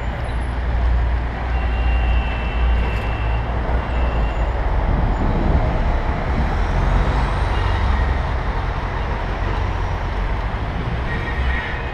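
City traffic noise heard from a moving bicycle, with wind buffeting the camera microphone as a steady low rumble. Faint high tones come in briefly about two seconds in and again near the end.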